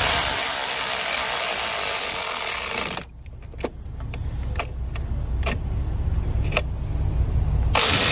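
Cordless power ratchet whirring as it spins down the 8 mm nuts that hold a new mega fuse in the battery-box fuse block, running for about three seconds. A few scattered metallic clicks follow, and the ratchet runs again near the end.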